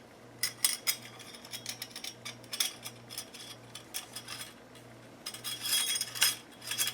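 Small metal parts clicking and clinking as a washer and accessory blade are fitted onto an oscillating multi-tool's spindle, with a quick run of rattling clicks about five to six seconds in.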